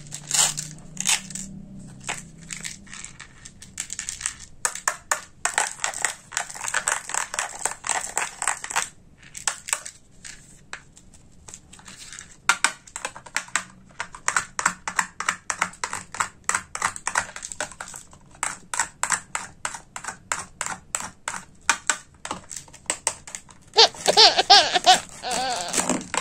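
Slime crackling and popping in rapid clicks as a plastic toy knife is pressed through slime-glued halves of a plastic toy cabbage. Near the end a brief louder burst of voices comes in.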